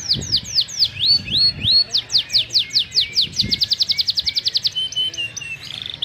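Domestic canary singing a long, varied song: a series of repeated downward-sweeping notes, a few rising notes, then a faster trill of about ten notes a second from about three seconds in, ending with a few lower notes.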